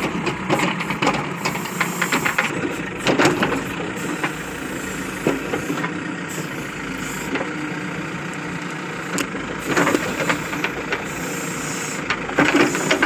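Diesel engine of a tractor-loader-backhoe running steadily while the backhoe arm digs a small drain, with clusters of sharp clicks and knocks breaking in several times, loudest about three seconds in and near the end.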